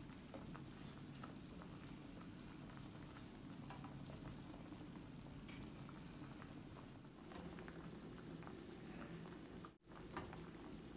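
Pot of chicken-feet soup at a rolling boil: faint, steady bubbling with many small pops. The sound drops out for a moment near the end.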